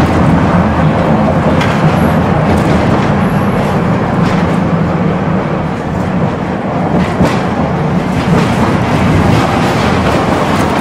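Tram running along its track, heard from inside the passenger car: a steady, loud rumble from the wheels and running gear, with a few sharp knocks along the way.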